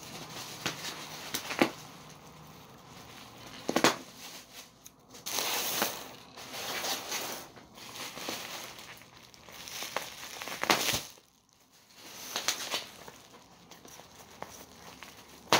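Plastic bubble wrap crinkling and rustling in irregular bursts as it is handled and pulled open, with a few sharp clicks from scissors cutting the packing tape.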